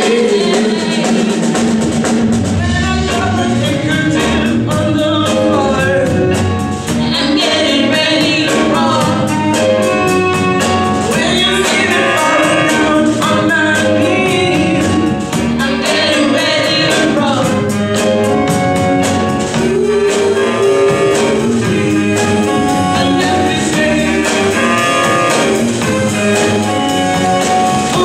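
Live band music: two women singing into microphones over electric guitar, bass and a steady drum beat.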